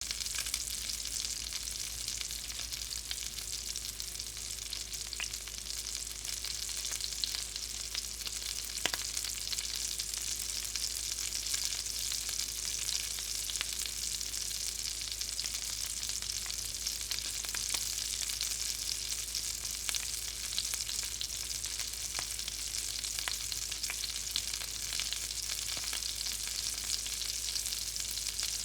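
Hot grease frying in a pan: a steady sizzle dense with small crackling pops.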